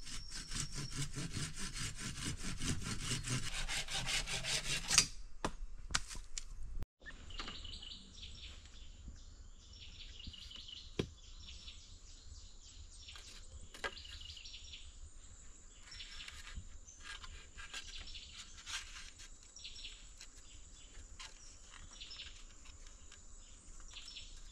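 Wood being worked with a hand tool in quick rhythmic strokes for about five seconds. Then, after a short break, forest sound takes over: a steady high insect drone, bird chirps on and off, and a few light knocks.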